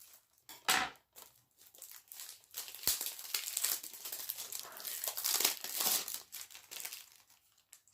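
Plastic shrink-wrap being torn and peeled off a Blu-ray case by hand, crinkling and crackling in irregular bursts, with a single sharp click about three seconds in.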